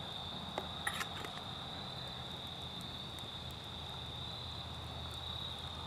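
Steady, continuous trilling of crickets in an evening insect chorus, over a low steady rumble, with a few light clicks about a second in.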